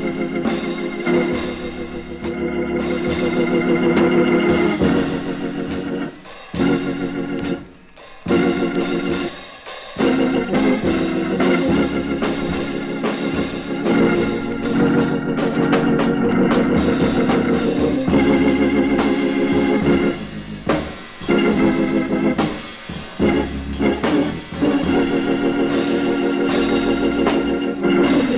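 Hammond organ playing full, held jazz chords and phrases, with a drum kit keeping time behind it. The organ drops back briefly a few times between phrases, most clearly about a quarter of the way in.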